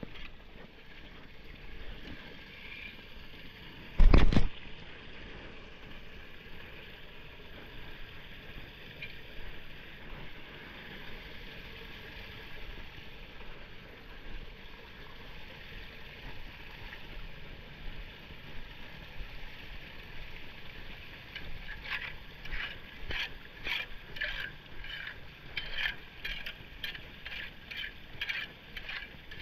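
Floodwater running steadily into a street drain grate. A single loud thump about four seconds in; from a little past twenty seconds, a run of short scraping, rustling strokes about two a second as wet leaves and debris are pulled off the grate by gloved hands.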